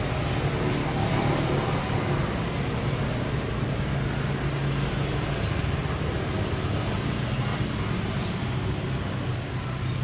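Steady road-traffic noise: a low engine hum under a noisy wash.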